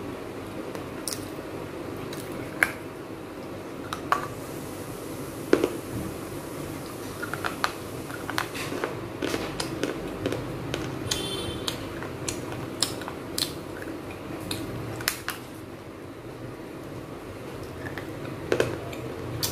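Small fired-clay pots being broken by hand and crunched: a string of sharp, irregular snaps and cracks as pieces of baked clay break off, over a steady background hiss.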